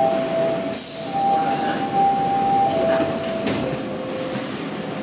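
Inside a Toronto subway car at a station: a sequence of steady tones alternating between a higher and a lower pitch, then stepping lower near the end, over the car's low rumble, with a couple of short knocks.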